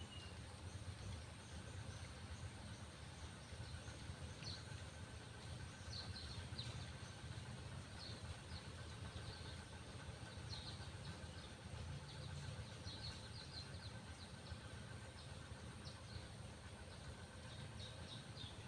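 Faint outdoor ambience: a low steady rumble with scattered short high chirps and a faint steady high tone throughout.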